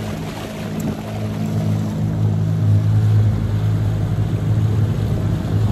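A small 9.9-horsepower outboard motor running steadily at cruising speed on an open boat, a constant low hum, with water and wind hissing over it.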